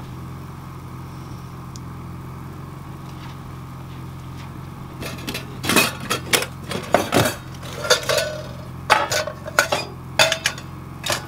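Metal cookware being handled: a run of sharp clinks and clattering knocks through the second half, over a steady low hum.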